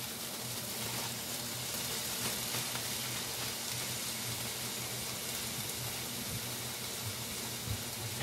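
Frozen bell pepper strips sizzling steadily in hot canola oil in a cast iron skillet, the sizzle driven by the ice and moisture on the frozen peppers hitting the hot fat.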